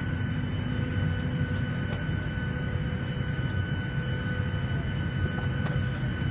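Airliner cabin noise: a steady deep rumble of engines and rushing air, with faint constant whining tones above it.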